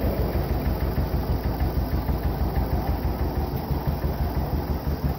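John Deere 720 two-cylinder diesel tractor engine running steadily with an even, pulsing beat.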